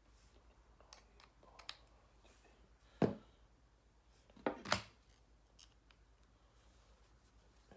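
A few sharp clicks and knocks from tools being handled. The loudest comes about three seconds in, and two more follow close together about a second and a half later, with fainter ticks before them.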